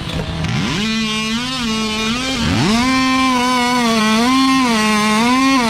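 Two-stroke chainsaw revved up to full throttle and held there, its pitch sagging and recovering as it works through a log. It dips sharply once, about two and a half seconds in, then climbs straight back.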